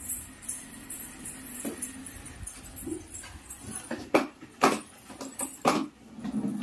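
Light jingling throughout, with three sharp knocks in the second half as a child handles the steering wheel of a plastic ride-on toy car.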